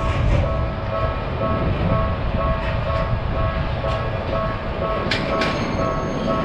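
Railroad crossing alarm ringing in a steady repeating on-off pattern over the rumble of a passing train, with two sharp clicks about five seconds in.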